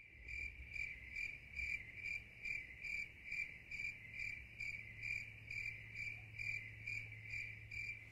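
A cricket chirping in an even rhythm, about two and a half short chirps a second, over a faint low hum.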